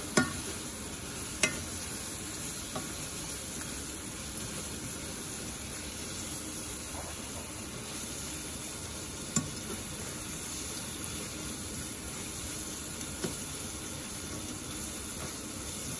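Curry sauce sizzling in a ceramic-coated saucepan over medium heat while being stirred with a slotted spoon, with a few light clicks of the spoon against the pan.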